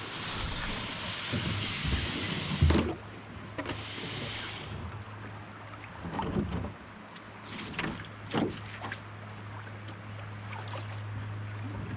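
Splashing and sloshing of a person wading in shallow water over a muddy bottom, with several thumps, the loudest about two and a half seconds in.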